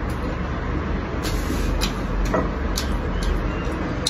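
A person chewing a mouthful of fried green peppers, with short crunchy clicks about every half second, over a steady low rumble of background noise.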